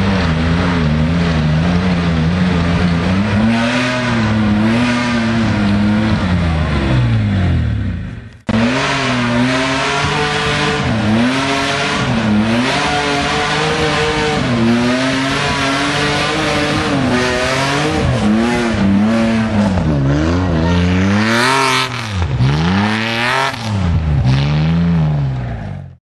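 Off-road 4x4 engine revving hard, its pitch repeatedly climbing and dropping as the vehicle claws up a steep muddy slope. The sound breaks off briefly about eight seconds in and then resumes.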